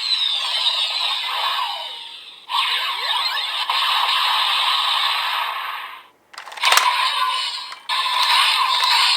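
Electronic toy sound effects and music from the DX VroCan Gatling's speaker, with falling sweeps at first, a new burst about two and a half seconds in, a brief cut-out after six seconds and a few sharp clicks as it resumes.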